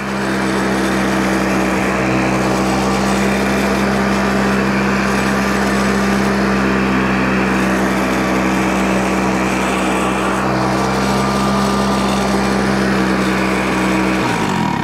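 Flymo hover mower's Tecumseh two-stroke engine running steadily at speed, then winding down and stopping near the end as the dead-man's handle is let go.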